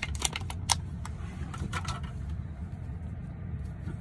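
Clear plastic clamshell food container crackling and clicking as it is handled. There is a burst of sharp clicks in the first second and a few more about two seconds in, over a steady low rumble.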